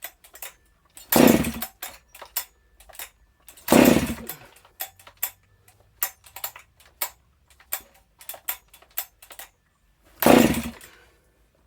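Husqvarna 268XP two-stroke chainsaw, without its muffler, cranked over on three pulls of the recoil starter cord; it only half-fires and does not start even though fuel has been dribbled down the carburettor throat. Short clicks and knocks come between the pulls.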